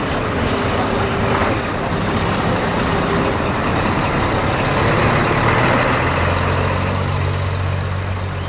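Scania tractor unit's diesel engine running as the truck rolls slowly past at close range. Its low engine note grows stronger in the second half, then fades near the end as the truck moves away.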